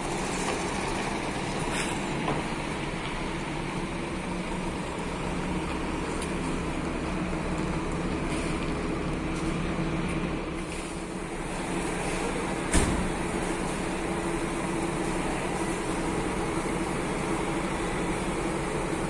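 Large diesel coach engine idling steadily, with a sharp clack about thirteen seconds in.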